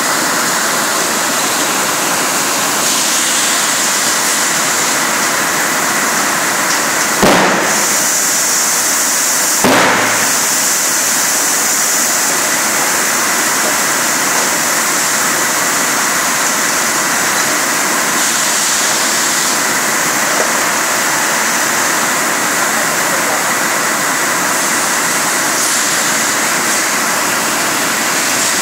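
Rotary PET-bottle filling machine running with a loud, steady hiss, broken by two sharp bangs, the first about seven seconds in and the second two and a half seconds later.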